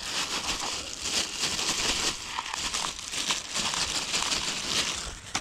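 Close crinkling and rustling of plastic bags or packaging being handled while bait is sorted out, made up of many small irregular crackles.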